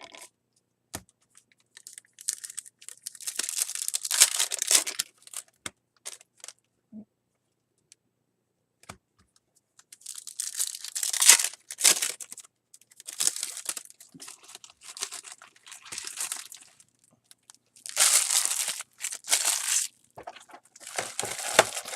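Trading-card pack wrappers and cards being handled, crinkling and rustling in several bursts of one to three seconds with quiet gaps between.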